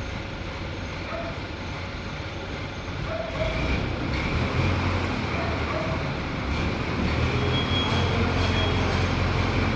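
A heavy vehicle engine running with a low rumble that grows louder about three seconds in, with a short high beep repeating near the end.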